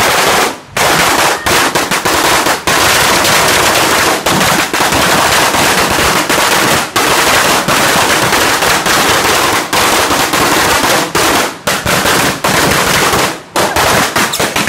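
A Sinturon ni Hudas firecracker string going off in a loud, rapid, unbroken chain of bangs, with a few short breaks.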